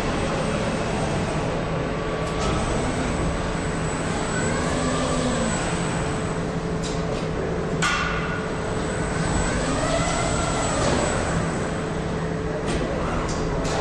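Automated stator assembly machine running: the servo drive of its rotating gripper arm whines up and down in pitch twice as the arm swings copper hairpin conductors into place, over a steady machine hum, with a few sharp clicks about eight seconds in and again near the end.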